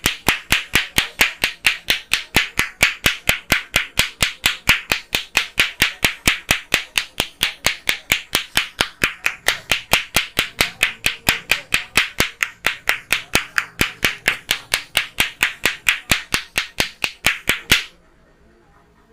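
Percussive hand strokes of a head massage: a fast, even run of sharp claps, roughly four to five a second, that stops abruptly near the end.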